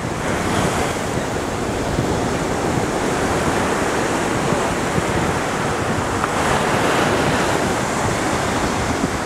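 Surf washing onto a sandy beach, a steady rush of noise, with wind on the microphone.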